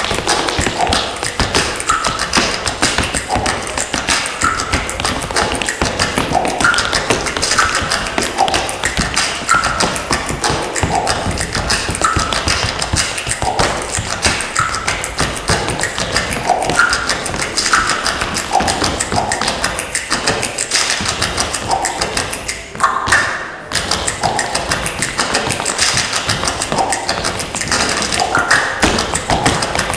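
Tap shoes striking a stage floor in fast, dense, shifting rhythms during a solo tap routine, over recorded music. The taps stop for a moment about three-quarters of the way through, then come back with a sharp hit.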